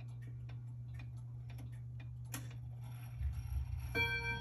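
Portuguese Reguladora dual-chime wall clock ticking, with clicks from other clocks around it. About three seconds in, a low rumble rises, and just before the end the first ringing note of its chime sounds.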